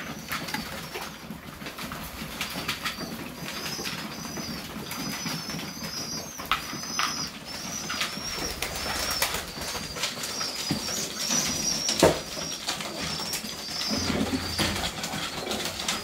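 Flock of Serbian Highflyer pigeons in a loft: a steady run of short, high peeps repeating throughout, with scattered sharp taps and clicks, the loudest about twelve seconds in.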